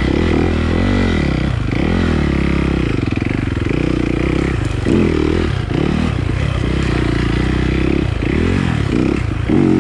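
Yamaha dirt bike engine being ridden on a trail, revving up and down again and again as the throttle is opened and closed, heard close from the rider's position.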